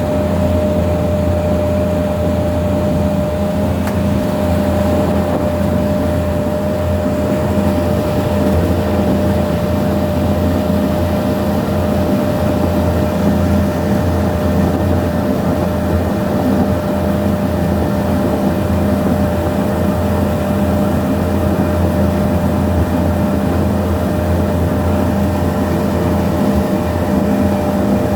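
Ferry boat's engine running steadily under way: a constant low drone with a steady higher hum over it, unchanging throughout.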